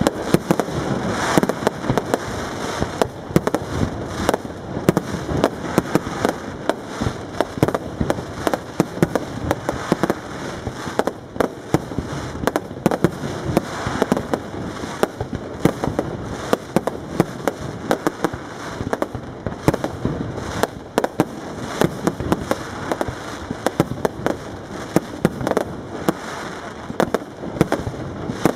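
Aerial fireworks display: shells bursting in quick, unbroken succession, dozens of sharp bangs with no pause.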